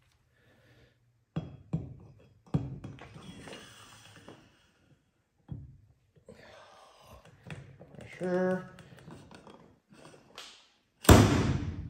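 Scattered clicks and knocks of metal tools and parts while a wrist-pin circlip is pressed into a piston with a circlip installation tool, with one loud, sharp knock near the end.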